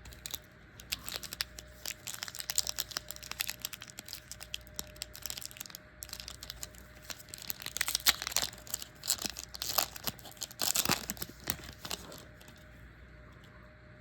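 Crinkling and tearing of a trading-card pack wrapper being ripped open and crumpled by hand, a run of irregular rustles that stops about two seconds before the end, loudest in two spells near the end.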